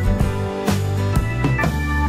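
Background music: a steady drum beat of about two hits a second over held chords.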